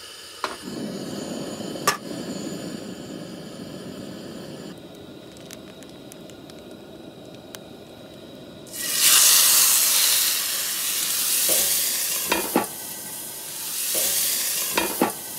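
Marinated chicken sizzling in a hot pan. The loud sizzle sets in about nine seconds in, after a lower steady rushing sound, and a couple of sharp clicks come near the end.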